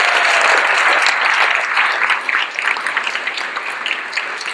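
A large indoor audience applauding. The clapping is dense at first, then thins into separate claps and fades toward the end.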